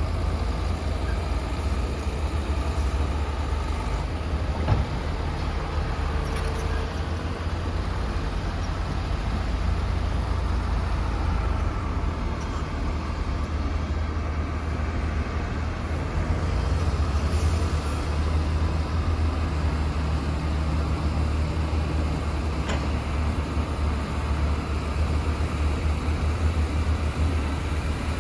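Komatsu PC450-8 hydraulic excavator's diesel engine running steadily with a deep low drone, its note shifting a few times as the load changes. A single sharp knock about five seconds in.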